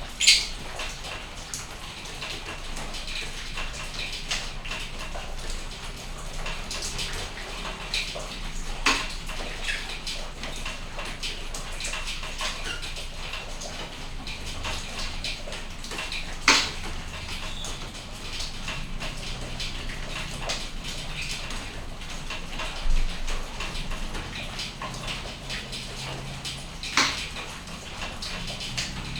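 Steady rain falling, with many small drops pattering and ticking close by and a few louder, sharp taps from bigger drips.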